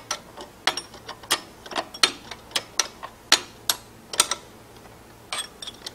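A metal wrench clicking, about three sharp clicks a second, as a bolt is tightened to hold the support arms at the base of a RIDGID 161 geared pipe threader. The clicks pause briefly about four and a half seconds in, then resume.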